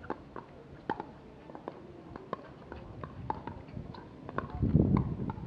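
Pickleball paddles striking the hard plastic ball in a quick, irregular series of sharp pops during a rally at the net, with a louder low rush of noise near the end.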